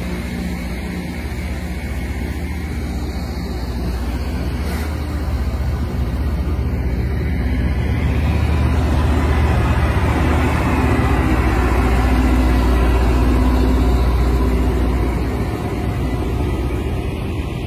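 Loram rail grinder train passing close by, its engines running and its grinding units working the rails with a loud, steady noise. The noise builds to a peak about halfway through and eases off near the end.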